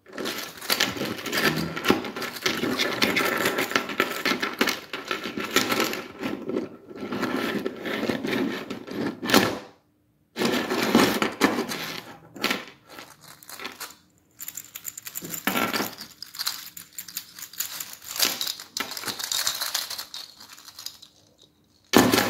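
Articulated 3D-printed flexi wolf toy, its chain of jointed plastic segments clicking and rattling as it is flexed and walked across a tabletop. The rattling is irregular, with a few brief pauses.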